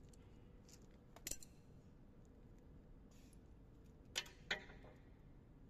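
A few short metallic clicks and clinks from steel reclaimer chain links and pins being handled. One comes about a second in, and two close together near four seconds are the loudest, over faint room tone.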